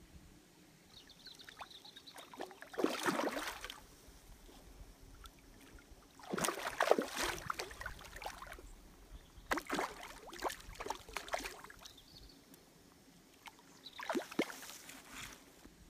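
Hooked rainbow trout thrashing and splashing at the surface of the water, in four separate bursts of a second or two each.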